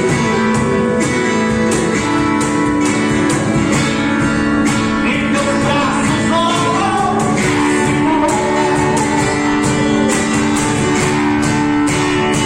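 Live worship song played by a praise band: singing over strummed guitar and a steady beat.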